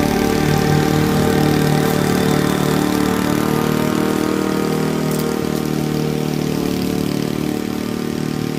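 Honda walk-behind lawn mower's single-cylinder four-stroke engine running steadily while cutting tall, overgrown grass, growing a little quieter in the second half as the mower moves away.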